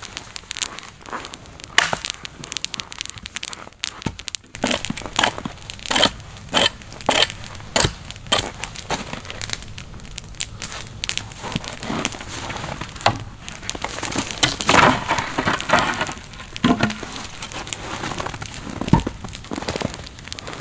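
Boots crunching in snow and a wood campfire crackling, with irregular crisp crunches and snaps throughout. Near the end a hatchet knocks into wood as kindling is split on a stump.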